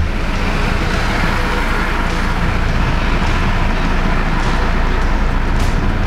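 Mercedes-Benz E-Class moving slowly under its automatic parking assistant, heard from inside the cabin as steady engine and tyre noise with a low rumble. A short low thump comes right at the start.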